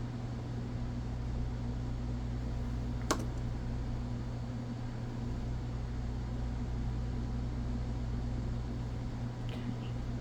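Steady low hum with one sharp click about three seconds in, and a couple of faint ticks near the end, as of small parts being handled.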